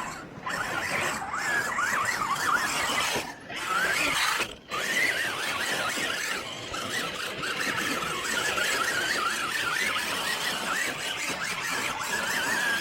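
Radio-controlled rock bouncer's electric motor and geartrain whining hard, the pitch jumping up and down rapidly with the throttle. It cuts out briefly a couple of times in the first five seconds.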